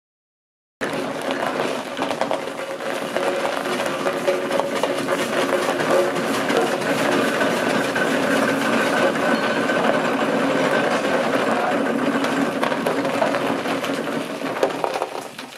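Aveling & Porter steam road roller's engine running, a steady fast mechanical clatter of its motion that starts about a second in and fades near the end.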